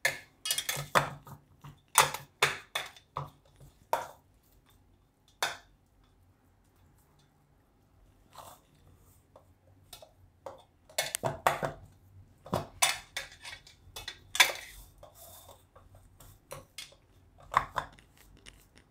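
Irregular short clinks and taps from a steel plate as hands press and spread gram-flour dhokli dough flat in it, with a quiet pause about a third of the way in and a busier run of taps past the middle.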